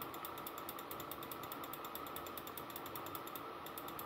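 Rapid, evenly spaced clicking from a computer's controls as it is worked, several clicks a second, over a faint steady hiss.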